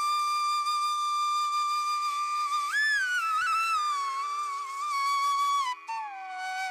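Background music: a flute playing a slow melody of long held notes with bends and slides over a steady drone. The held note breaks into a quick ornamented phrase about three seconds in, then settles on a lower note near the end.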